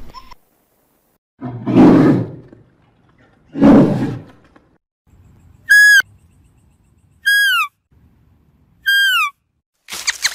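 Two loud, rough, low animal calls in the first few seconds, then three identical high-pitched calls from spotted deer about a second and a half apart, each dropping in pitch at its end.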